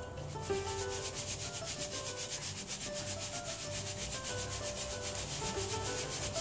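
Flour-dusted beef liver cubes shaken in a plastic colander, rustling in a rapid, even rhythm as the loose flour is sifted off.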